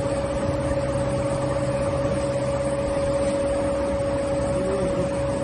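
Multi-layer belt conveyor running: a steady machine hum with a constant whine.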